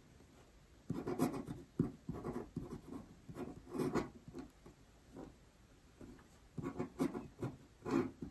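Pen nib scratching on paper as Chinese characters are written stroke by stroke: a cluster of short strokes starting about a second in, a pause around the middle, then another run of strokes near the end.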